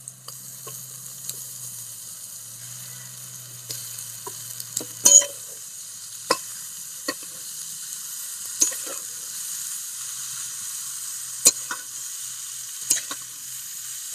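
Greens frying in hot mustard oil in a metal karai while being stirred with a metal spatula: a steady sizzle, with the spatula scraping and knocking against the pan every second or two, loudest about five seconds in.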